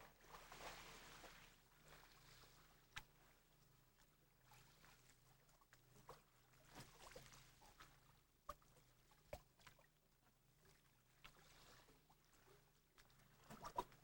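Very faint water sounds, soft swells of splashing or lapping, with scattered small knocks and clicks.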